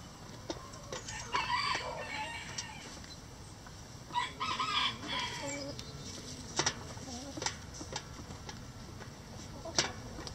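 Backyard rooster crowing twice, the calls about three seconds apart, with hens clucking low in between and a few sharp taps later on.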